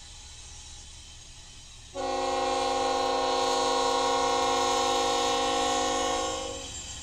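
Diesel locomotive air horn sounding one long chord blast of about four and a half seconds, starting suddenly about two seconds in, as the Norfolk Southern locomotive approaches a road grade crossing: the crossing warning. The low rumble of the passing freight train runs underneath.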